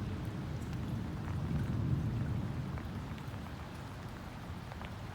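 Thunderstorm rain falling steadily, with scattered raindrop ticks near the microphone. A low rumble under it swells about two seconds in and eases again.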